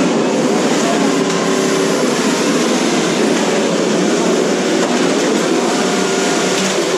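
Several 1/10-scale RC cars driving together in a demolition derby: a steady, dense din of motor and gear whine with rolling and rattling.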